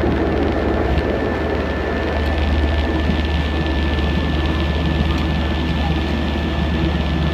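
Turboprop airliner engines heard inside the cabin while the aircraft taxis: a steady low drone with a thin, steady high whine over it.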